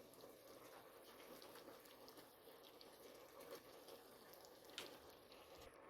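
Near silence with faint, scattered light ticks and taps of spice jars being handled and shaken over the pot, and one sharper click near the end.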